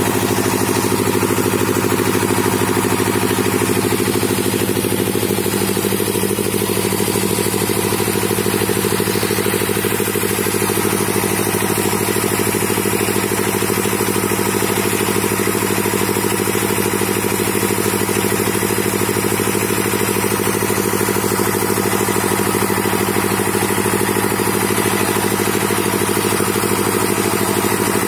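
The engine of a hydraulic auger drilling rig running steadily while the rig bores a soil borehole for geotechnical investigation.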